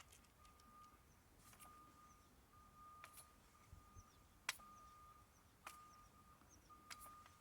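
Faint, regular clicks about every second and a quarter as a scissor jack is cranked down to lower the car onto its spare, with a steady electronic beep sounding on and off behind them.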